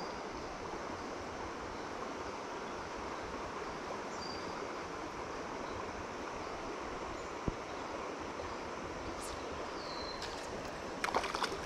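Steady rush of flowing stream water in a shallow trout-river run. A single sharp click comes about halfway through. Near the end, louder irregular splashing starts as a hooked trout thrashes at the surface.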